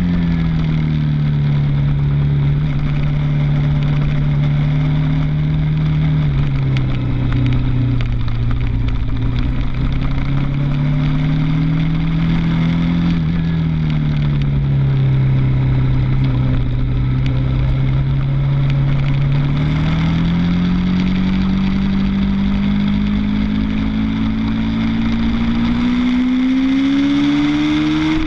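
Suzuki TL1000's V-twin engine heard onboard at speed around a race circuit, with wind rush over the microphone. The engine note eases off and settles, dips again in the middle, then climbs steadily through the gears' rev range over the last several seconds.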